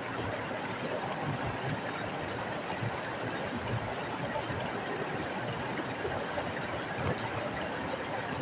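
Small stream flowing over rocks: a steady rush of water.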